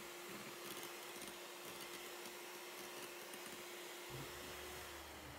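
Electric hand mixer running steadily, its beaters whipping egg whites into a stiff meringue in a glass bowl: a constant motor hum with a whirring hiss, the hum dropping in pitch near the end as the mixer slows.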